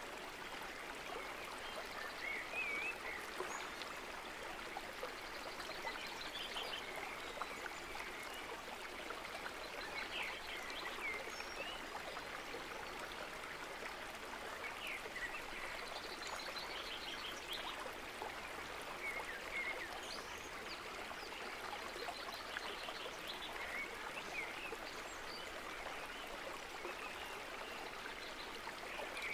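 Steady rush of running water, like a stream, with short high chirps and quick trills every few seconds.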